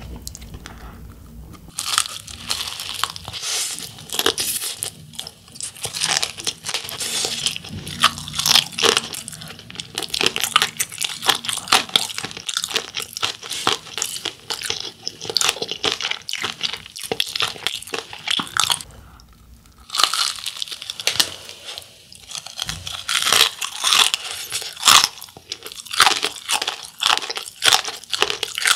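Close-miked biting and chewing of a fried cheese corn dog crusted in crushed instant-ramen snack: dense, crisp crunching and crackling, with a short pause about two-thirds of the way through before the crunching starts again.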